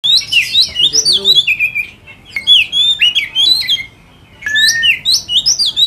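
Caged white-rumped shama (murai batu) singing: loud, varied whistled phrases that sweep up and down, in three runs broken by short pauses about two seconds and four seconds in.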